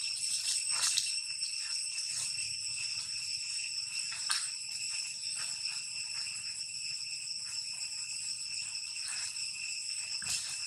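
A steady, high-pitched insect drone holding one unchanging tone throughout. Short crackles of dry leaves come now and then, the sharpest a little under halfway and again near the end, as the monkeys move over the leaf litter.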